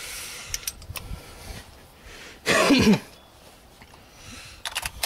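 A person coughs once, loudly, about two and a half seconds in, amid a few light clicks and knocks.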